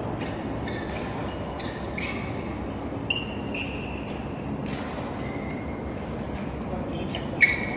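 Sneakers squeaking on a badminton court floor in short, high chirps, over the steady hum of a large hall. A single sharp knock rings out near the end.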